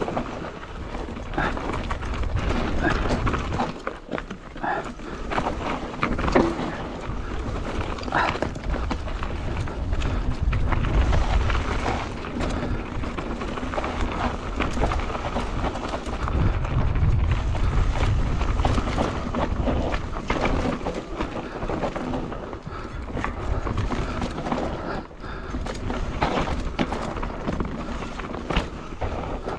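Hardtail mountain bike riding fast down a dry, rocky dirt trail: tyres rolling over dirt and roots, with a steady run of knocks and rattles from the frame and chain over the bumps and swells of low rumble near ten and seventeen seconds in.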